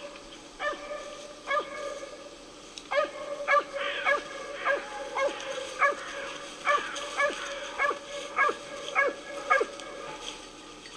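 A running hound baying over and over, short yelps each falling in pitch, about one or two a second. This is the voice a hound gives while following a roe deer's trail.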